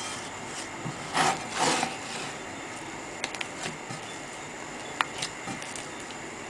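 Hands mixing and kneading soft bread dough and flour in a glass bowl: dough rubbed and scraped against the bowl, with two louder scrapes about a second in, then a few short clicks.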